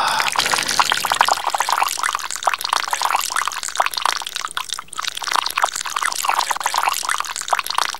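Liquid pouring and splattering onto a floor, a steady dense trickling patter.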